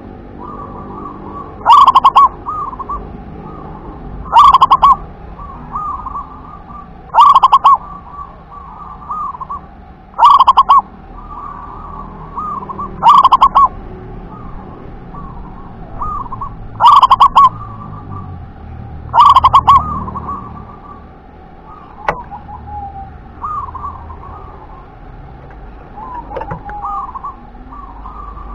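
Zebra dove (perkutut) singing its cooing song: seven loud phrases, about three seconds apart, with softer trilled coos between them. The loud phrases stop about two-thirds of the way through; quieter coos carry on, with one sharp click soon after.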